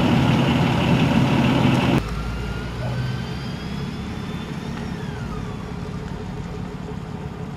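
A motor vehicle's engine running loud and steady, cut off abruptly about two seconds in. After that a quieter low engine rumble goes on, with faint thin tones that slowly rise and then fall away.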